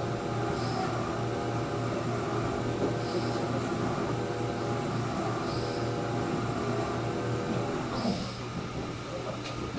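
Running noise inside a Chuo Main Line electric train's carriage: a steady hum of motor tones with rail noise under it, and a faint high chirp about every two and a half seconds. The hum weakens about eight seconds in.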